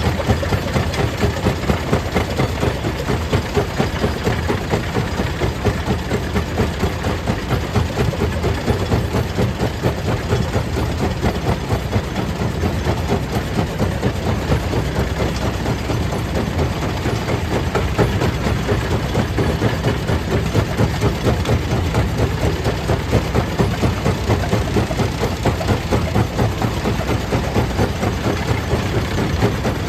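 Stone crusher plant machinery running steadily, a heavy low drone with a fast, even pulse.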